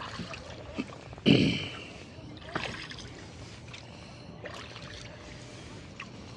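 Oars of a rowboat working through the water in steady strokes, with water sounds under them. A louder, sharp splash or knock comes about a second in, and fainter stroke sounds follow about every two seconds.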